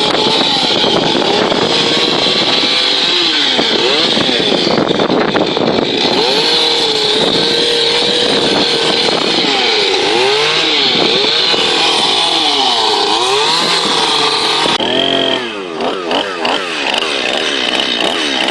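Chainsaw carving wood, its engine revving up and down over and over as the bar is worked into the wood. About fifteen seconds in the revs drop briefly, then pick up again.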